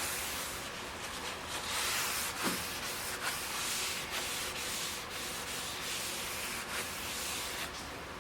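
Hand rubbing back and forth in repeated strokes on the WD-40-wet cast-iron top of a Ridgid 4512 table saw, working off surface rust.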